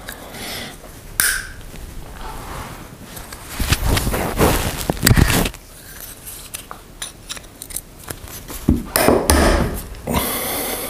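Metal parts and a tool clicking and clinking as a cover is unscrewed from a car's LPG gas reducer, with two longer stretches of louder scraping and handling noise.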